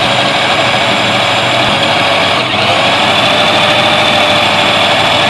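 Electric food processor running at full speed, its blade chopping bread crumbs and cocoa powder into a fine chocolate crumb: a steady motor whine with grinding. The motor dips for a moment about two and a half seconds in, then spins back up.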